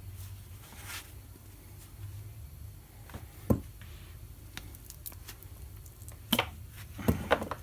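Pliers gripping and twisting a rubber power steering return hose off its aluminium pipe end, giving scattered sharp clicks and creaks. The sharpest comes about three and a half seconds in, and a few more come near the end.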